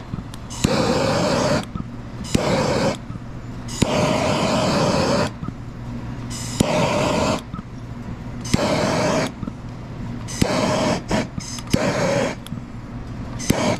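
Bernzomatic hand torch flame hissing in about nine surges, each with a steady tone in it, as it is passed over window tint film to heat-shrink it onto a curved window.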